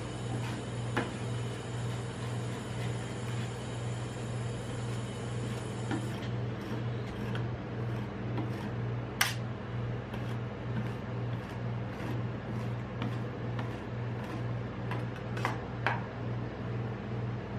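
Steady low machine hum pulsing about twice a second, from the cold plate's refrigeration unit. A few sharp clicks of metal spatulas against the frozen steel pan cut through it, the loudest about nine seconds in and two more near the end.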